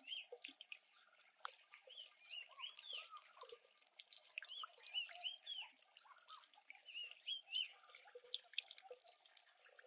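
Water trickling and dripping from a clay-pot outlet into a small garden pond, faint, with many short high chirps running through it.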